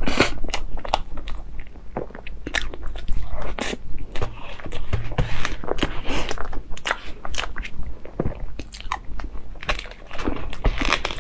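Close-miked mouth sounds of chewing soft cream cake: many quick, irregular clicks and smacks, with the spoon dipping into the cake now and then.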